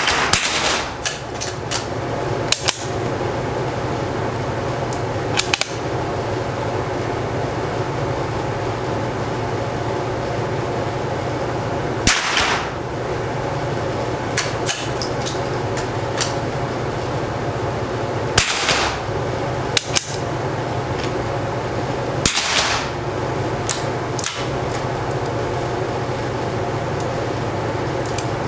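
.22LR target rifle shots in an indoor range: a few sharp cracks several seconds apart, each with a short echo. Smaller clicks fall between the shots over a steady background hum.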